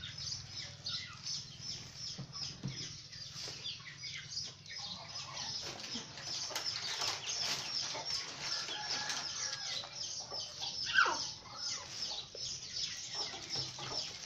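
Yard ambience of small birds chirping rapidly and without a break, with chickens clucking now and then and one louder falling squawk about eleven seconds in.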